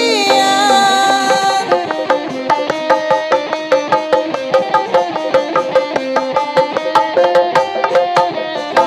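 Sundanese reak ensemble playing: a reedy wind melody with wavering, ornamented notes runs over fast, steady drumming on barrel and hand drums, with clashing cymbals.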